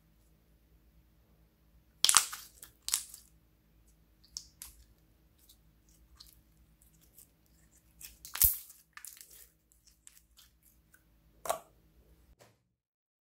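Clear slime stretched and squeezed by hand, giving sharp wet pops and crackles: a few loud snaps among many small clicks. The sound stops abruptly shortly before the end.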